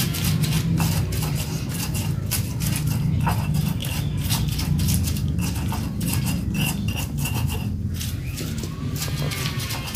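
Stone pestle grinding and crushing chillies in a stone mortar (cobek and ulekan), a busy run of gritty scrapes and knocks of stone on stone. A steady low hum runs underneath.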